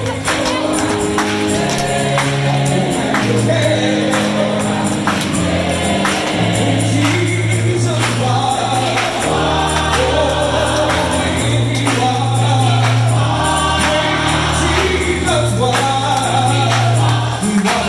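Live music: a lead singer with a gospel choir, band and strings, over long held bass notes that change every couple of seconds.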